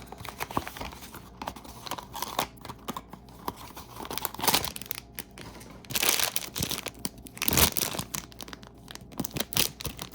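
Blind-box mini figure packaging being opened by hand: the cardboard box and the bag inside it crinkled and torn, in a run of rustles and small clicks with louder bursts about halfway through and again later.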